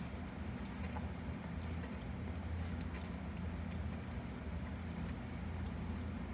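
Scattered small crisp clicks of a land crab (Cardisoma carnifex) picking at and chewing an apple slice with its claws and mouthparts, over a steady low hum.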